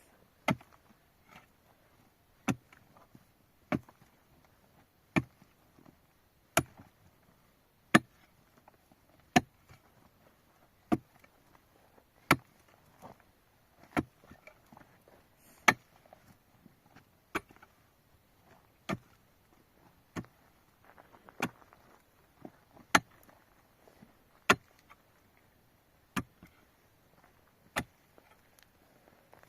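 A hand tool struck over and over in a steady work rhythm, about one sharp blow every one and a half seconds, some blows louder than others.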